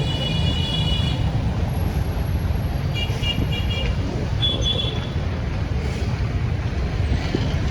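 Street traffic with a steady low rumble, cut through by short high horn beeps: one about a second long at the start, a few quick ones about three seconds in, and another around four and a half seconds.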